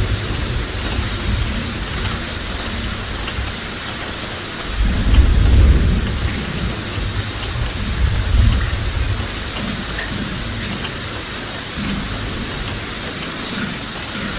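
Steady rain hissing, with low rolling thunder. The loudest rumble swells about five seconds in, and a second, weaker one comes around eight seconds in.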